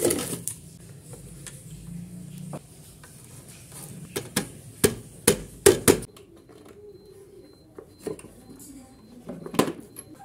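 Hands handling a set-top box and its cables on a wooden housing: a series of sharp knocks and clatter, with a quick cluster of about five knocks between four and six seconds in.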